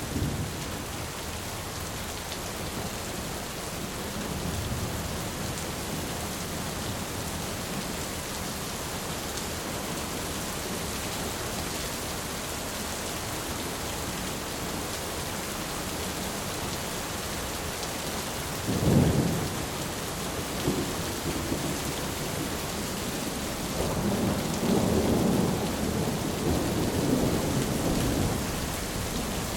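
Steady rain falling, with thunder: a sudden sharp clap about two-thirds of the way through, then a longer thunder rumble near the end.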